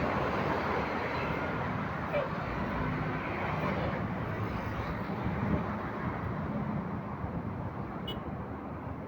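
Road traffic noise: a passing vehicle's engine and tyre noise, slowly fading away.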